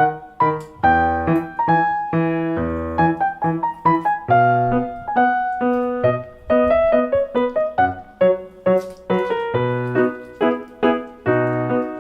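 Background piano music: a melody of separate notes over low bass notes.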